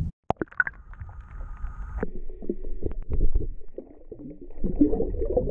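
Muffled water sound heard through a camera held under the surface: low sloshing, gurgling and knocks. A faint steady high whine runs for about the first two seconds.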